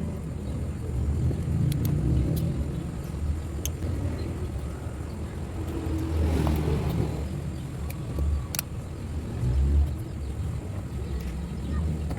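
An uneven low rumble, with a few sharp clicks and taps from small parts being handled.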